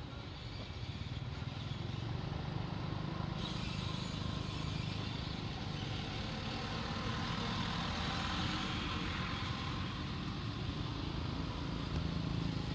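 Steady rumble and hiss of a motor vehicle running nearby, swelling over the first couple of seconds and then holding level.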